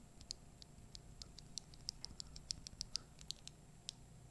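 A linear mechanical keyboard switch being pressed over and over by hand, giving faint, sharp clacks at an uneven four or five a second.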